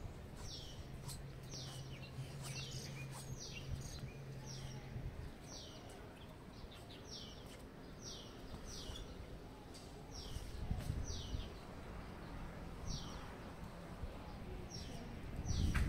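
Small birds chirping: repeated short high chirps, each falling in pitch, about one or two a second. A low steady hum runs beneath them from about one to five seconds in.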